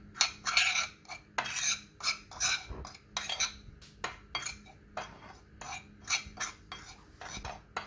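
A metal fork stirring dry seasoning powder on a ceramic plate: repeated scraping strokes with light clinks of the tines against the plate, about two a second.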